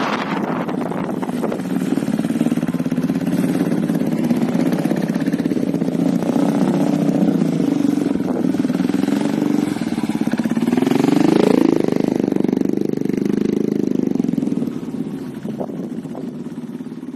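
Motorcycle engines running steadily at low speed, with one revving up about eleven seconds in, its pitch climbing. The sound fades near the end.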